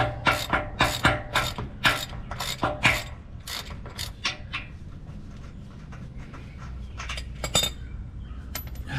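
Hand ratchet wrench clicking as a bolt on a boat trailer's frame bracket is turned, about three clicks a second for roughly four seconds, then quieter with a few more clicks near the end.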